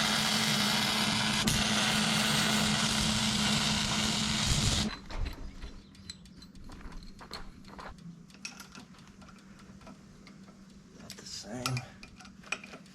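A power tool running loud and steady with a constant high hum, shutting off abruptly about five seconds in. Then light metal clinks and knocks of parts being handled.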